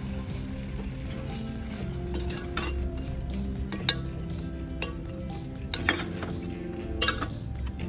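A perforated steel skimmer spoon clinks against a steel pan as jalebis are stirred through sugar syrup, with sharp clinks about four seconds in, near six seconds and about seven seconds. Background music plays steadily throughout.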